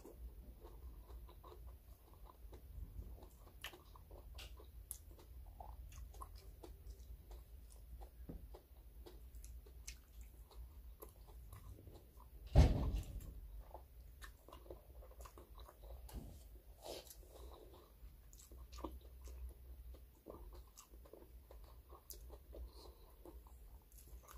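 A person eating with her hands: quiet chewing and small scattered clicks and taps of fingers and a spoon in a glass bowl, over a low steady hum. One loud thump comes about halfway through.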